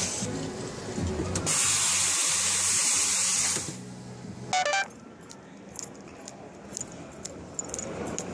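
Liquid running into a stainless steel pitcher over a machine's steady hum, then a loud hiss of spray for about two seconds. A short metallic clatter follows, then quieter footsteps on a hard floor.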